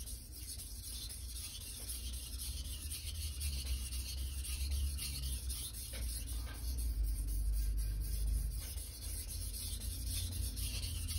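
Japanese kitchen knife being sharpened on a wet whetstone: repeated back-and-forth scraping strokes of steel on stone, with a low rumble underneath.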